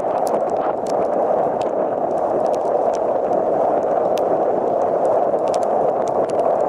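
Hurricane-force wind blasting the microphone as a steady, loud rush, mixed with storm surf, and scattered sharp ticks of wind-driven rain striking the camera.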